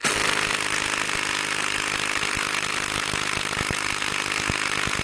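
DeWalt 20V MAX XR cordless impact wrench hammering continuously in reverse on a long lag bolt driven into a log, a steady rapid rattle of impacts. The bolt is not backing out.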